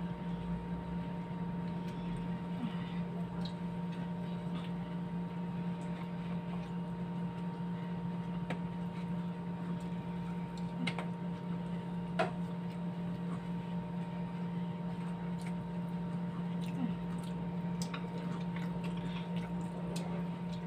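Table-side eating sounds: occasional short clicks and taps of chopsticks and dishes, with soft chewing, over a steady low electrical hum.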